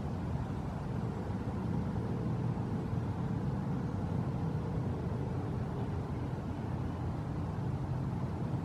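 Steady low rumble of background noise with no distinct sounds standing out.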